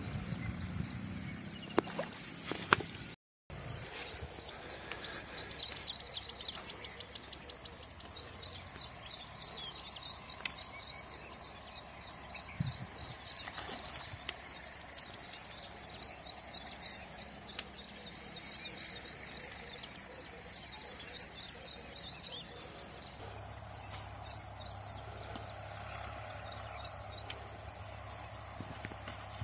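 Outdoor ambience of insects with a steady high buzz and birds chirping in quick runs, the chirping busiest in the first half. In the first few seconds, water splashing and a couple of sharp knocks as hands are rinsed at the water's edge.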